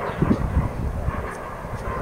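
Wind buffeting the microphone, in uneven low rumbling gusts.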